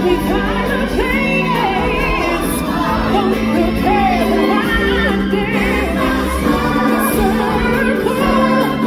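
Live stage-show music with a group of voices singing over sustained accompaniment, loud and continuous.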